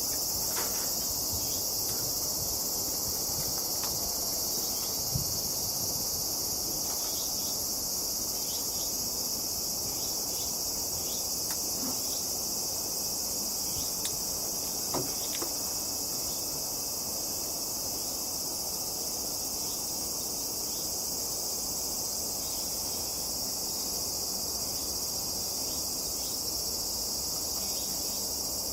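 Steady chorus of singing insects, a continuous high-pitched shrill trill.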